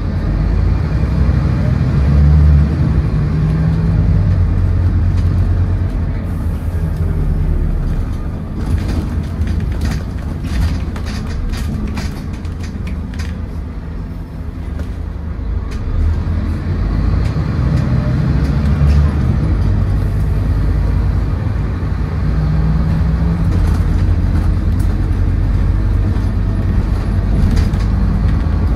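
Scania N230UD double-decker bus heard from inside the saloon as it drives: its five-cylinder diesel engine and ZF Ecomat automatic gearbox pull hard at first. The engine eases off about halfway through, when interior rattles and clicks stand out, then pulls hard again.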